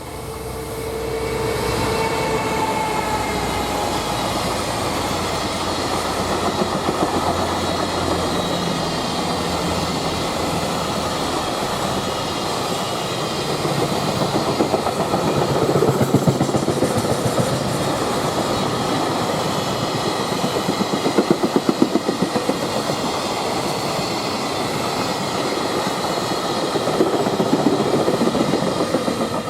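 Freight train passing: a slightly falling whine from the locomotive in the first few seconds, then a long rake of freight wagons rolling by, wheels clacking over rail joints in rhythmic groups.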